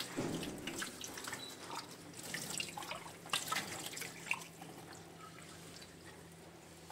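Water running from a kitchen tap into a small glass and splashing into the sink, with light clinks and knocks, then the flow stops.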